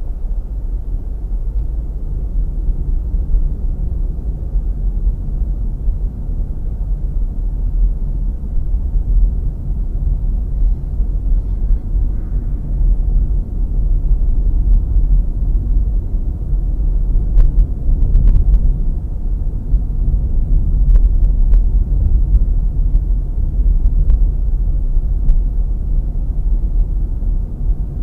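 Low, steady rumble of a car driving, engine and road noise as picked up by a dashcam microphone inside the car, with a handful of short clicks in the second half.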